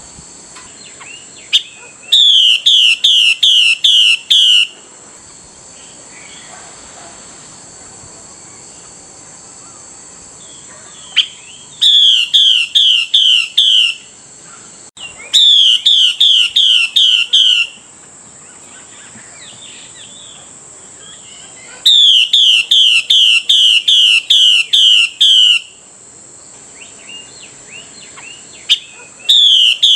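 Female Chinese hwamei calling to the male: runs of loud, quickly repeated whistled notes, each note sliding down in pitch, about two to three notes a second. Five runs come a few seconds apart, the last cut off at the end, over a steady high hiss.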